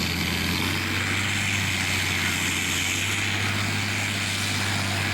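Farm tractor engine running hard under load as it pulls the weight sled down the track, a steady loud drone with no breaks.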